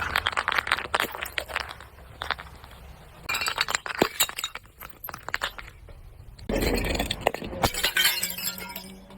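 Glass being crushed and breaking: three bursts of sharp crunching and clinking, the longest at the start, one around four seconds in and one after a quieter gap near seven seconds.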